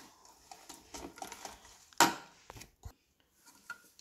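Whisk stirring waffle batter in a ceramic bowl: soft, irregular clicks and scrapes, with one sharp knock about two seconds in and a smaller one shortly after.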